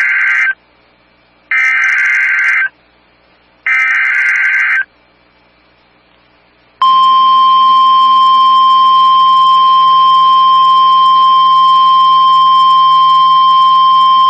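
Emergency Alert System SAME header data bursts: three short warbling digital screeches about a second each, then a steady NOAA Weather Radio 1050 Hz warning alarm tone starting about seven seconds in and holding for about nine seconds. Together they signal the start of a new warning broadcast.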